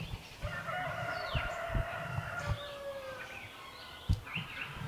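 A rooster crowing once, one long drawn-out crow of nearly three seconds, with small birds chirping around it.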